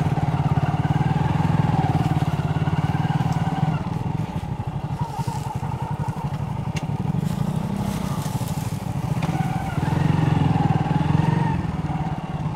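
Motorcycle engine running while riding along at a steady pace. The engine note drops and turns rougher a few seconds in, then picks up again near the end, as the throttle eases off and opens again.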